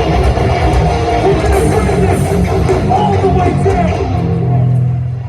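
Hardcore punk band playing live, loud distorted electric guitars with bass and drums. Near the end the full band drops away to a held low guitar or bass note.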